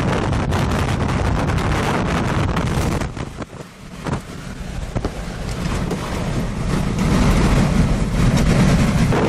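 Strong gusting wind buffeting the microphone near a tornado, a loud rushing roar that eases for about a second and a half about three seconds in, then builds back up.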